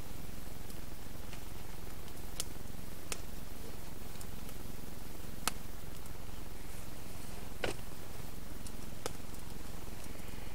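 A steady low rumble with about five sharp, scattered clicks or crackles, the fourth followed by a short ring.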